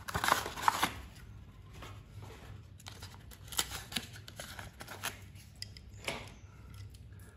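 Small cardboard toy box opened by hand and the toy's plastic tray slid out and handled: scraping, rustling and light clicks, busiest in the first second.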